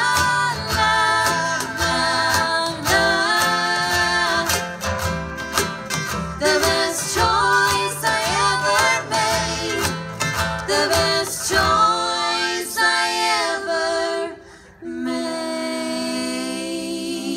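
Live acoustic folk-country song: female vocals over strummed acoustic guitar. The low bass drops out about twelve seconds in, and after a brief pause the song closes on long held notes.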